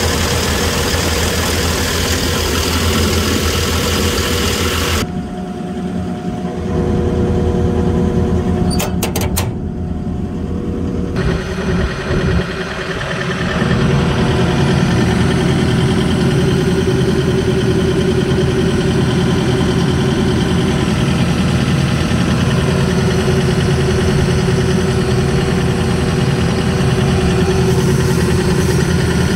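John Deere 135D excavator's diesel engine idling steadily, heard close up. It is muffled for several seconds after about five seconds in, with a few sharp clicks partway, then comes back louder.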